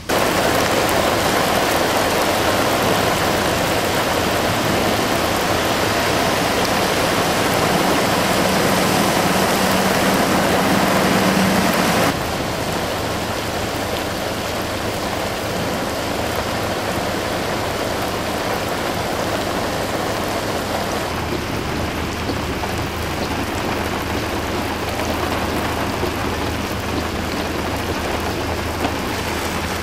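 Heavy rain pouring down on a flooded street, a dense steady hiss. A low engine drone runs beneath for a few seconds, and the rain drops somewhat in level about twelve seconds in.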